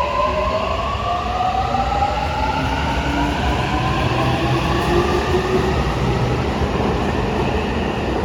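Toei 6500 series train's Mitsubishi hybrid SiC VVVF inverter and induction traction motors whining, several tones climbing together in pitch as the train accelerates, over a steady rumble of wheels on the rails.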